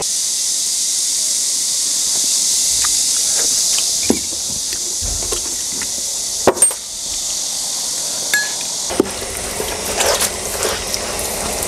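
A man bites and gnaws on a braised pig's head: a few sharp clicks and crunches over a steady high hiss. The hiss cuts off about nine seconds in.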